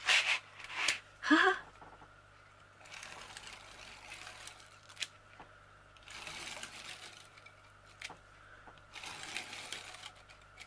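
Hands working double-sided tape onto foam board: three stretches of soft rustling and scraping, each about a second and a half long. In the first two seconds there are a few sharper noisy scrapes and a brief murmur.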